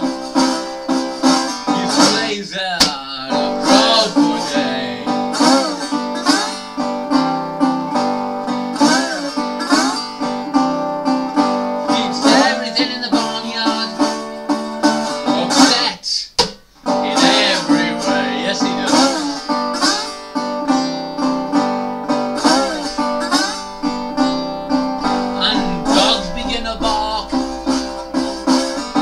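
Metal-bodied resonator guitar played bottleneck-style, a blues instrumental break with the slide gliding up and down into notes over repeated bass notes. The playing stops briefly about halfway through, then carries on.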